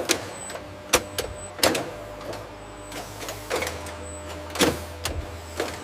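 Packaging-line machinery running with a steady low hum and faint whine, with a few sharp mechanical clicks and clacks, about four over the stretch.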